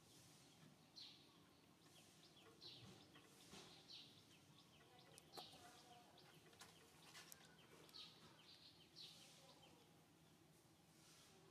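Faint outdoor ambience with small birds chirping: short high calls repeating every second or so, and a single light tap about halfway through.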